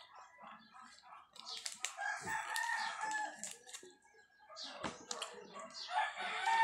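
A rooster crowing twice, about two seconds in and again near the end, with the crinkle of a chocolate bar's foil wrapper and crunchy chewing between.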